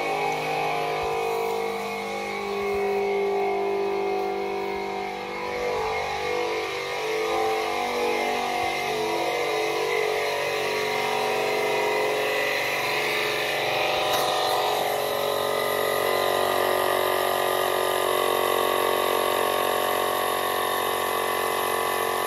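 Small compressor of a cordless air inflator running, pumping up towards its 50 PSI setting. Its pitch wavers over the first several seconds, then holds steady.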